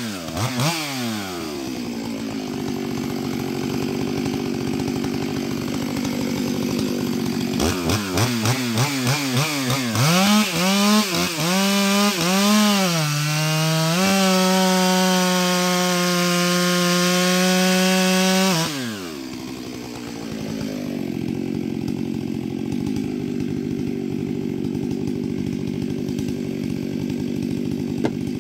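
Stihl MS 661 C two-stroke chainsaw. It drops from high revs to idle at the start and idles for several seconds. About a third of the way in it is blipped up and down rapidly several times, then held steady at high revs for about five seconds before falling back to idle for the last ten seconds.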